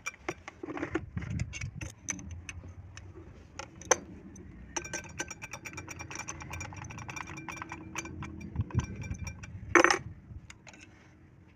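Steel spanner clinking and scraping on the nut of a sewing machine's hand crank as the nut is worked loose, in a run of metal clicks, rattles and ringing. A single loud metallic knock comes near the end.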